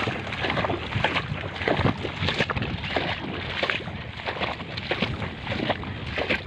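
Shallow, muddy pond water sloshing and splashing in irregular strokes, about one or two a second, as someone moves through it.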